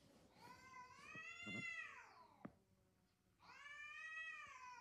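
Cats squaring off for a fight, yowling: two long, drawn-out calls, each sliding down in pitch at the end, with the second starting about three and a half seconds in. A single sharp click falls between them.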